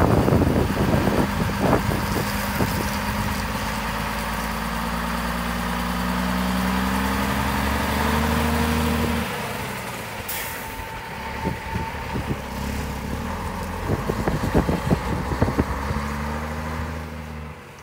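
A 1980 Scania LS 111 truck's 11-litre straight-six turbodiesel pulls away and accelerates. Its engine note rises steadily, drops abruptly about nine seconds in as it shifts gear, then climbs again as the truck drives off and grows fainter.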